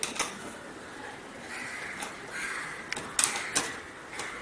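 Sharp metallic clicks and knocks of an Allen key working the bolts that hold a tabletop foosball table's stand, a cluster of them about three seconds in. A harsh rasping sound runs through the middle.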